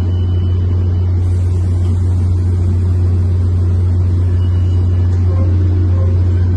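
Standing Tri-Rail diesel passenger train idling at the platform: a loud, steady low drone with no change in pitch or level.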